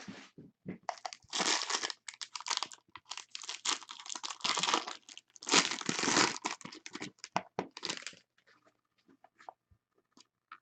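Plastic wrapping on a box of 2017 Bowman Chrome HTA baseball cards being torn open and crinkled in bursts, thinning to a few small clicks and rustles after about eight seconds.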